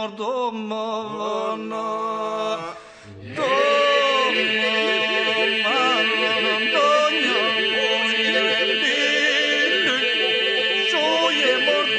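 Albanian Lab-style polyphonic ilahi sung by unaccompanied voices: a steady held drone under a moving lead voice. The singing drops away briefly about three seconds in, then comes back louder and fuller.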